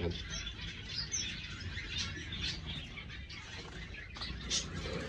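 Small aviary birds chirping, many short high calls overlapping.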